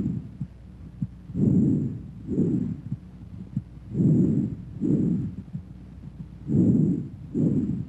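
Bronchovesicular breath sounds as heard through a stethoscope: three breaths, each an inspiratory and an expiratory sound of about equal length with a short gap between them. Faint heartbeats sound between the breaths.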